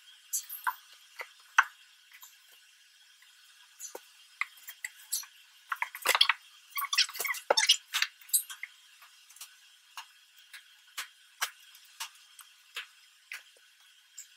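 Scattered taps, knocks and clicks of books being pulled out, handled and shifted on a bookcase shelf, busiest from about six to eight seconds in.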